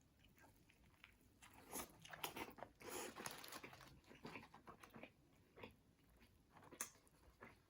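Faint chewing and crunching of a fried chicken sandwich being eaten, with scattered small crackles and clicks, busiest a couple of seconds in.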